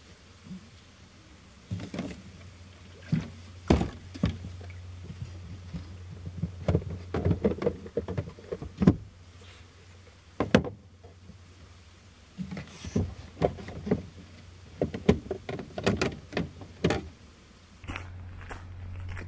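A person shifting about inside a small car's cabin: scattered knocks, thumps and rustling of bedding and clothing against the seats and trim, over a steady low hum. The knocks stop near the end.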